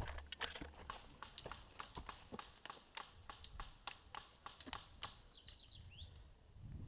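Irregular sharp crackles and snaps of footsteps on dry twigs and leaves, a few a second, with a short rising chirp near the end.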